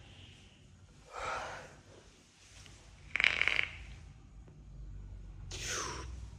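Loud coughing: three separate coughs, about a second in, about three seconds in (the loudest), and near the end.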